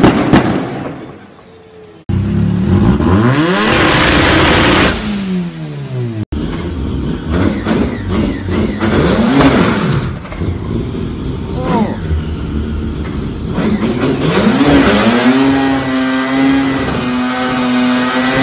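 Rotary-engined cars revving hard in a series of short clips: a drifting car's engine fading away, then several quick rising and falling revs. A rotary-powered sedan then revs up and holds high revs during a burnout, its note staying at one steady pitch near the end.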